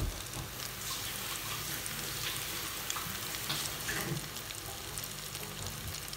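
Flour-coated chicken fillets deep-frying in hot oil in an electric deep fat fryer basket: a steady sizzling crackle of vigorously bubbling oil. A brief knock right at the start.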